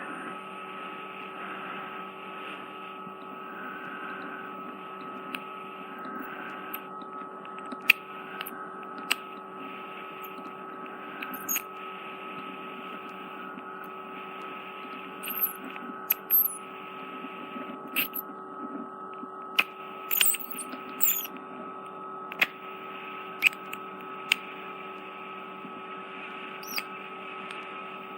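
Ear microsuction machine running with a steady hum, with sharp clicks and crackles here and there, most in the second half, as wax and dead skin are drawn through the suction tip in a narrow ear canal.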